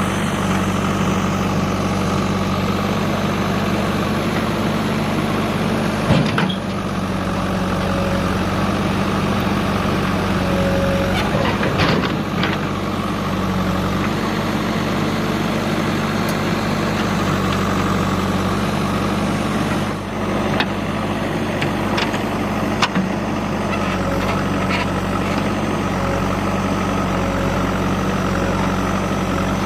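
Heavy diesel engine running steadily at a constant low pitch, with a few short knocks scattered through.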